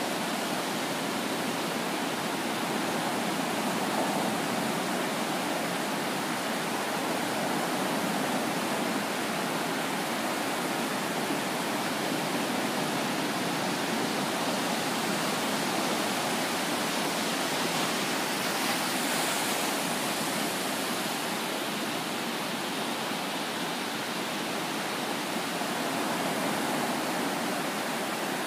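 Small ocean waves breaking and washing up the beach: a steady, even rush of surf that swells briefly about two-thirds of the way in.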